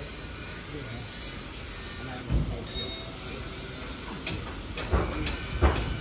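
Steady hiss of R134a refrigerant flowing from a hand-held cylinder through the charging hoses into a car's air-conditioning system, which has just been vacuumed, with a few dull knocks.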